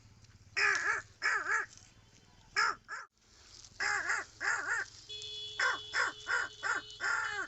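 A man imitating a crow's cawing with his voice: several harsh caws spaced apart, then a quicker string of short caws in the second half.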